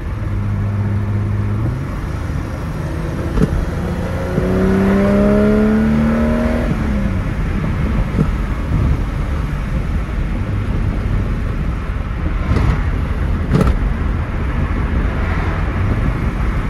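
BMW E30 325is's 2.5-litre straight-six heard from inside the cabin while driving. It runs steadily at first, then rises in pitch as the car accelerates about four seconds in, with steady road and wind noise after that.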